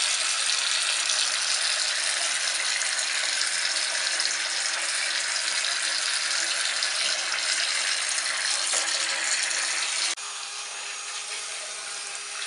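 Bathtub tap running, a steady rush of water pouring into the tub. About ten seconds in it drops suddenly to a quieter flow.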